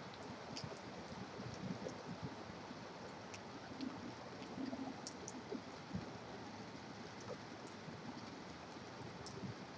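Steady rain with scattered drips ticking, over the constant hiss of highway traffic.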